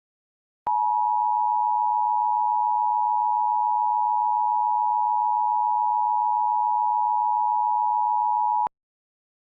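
Emergency Alert System attention signal: the two-tone alert of two steady pitches sounding together, starting under a second in, holding for about eight seconds and cutting off abruptly. It announces an emergency broadcast message.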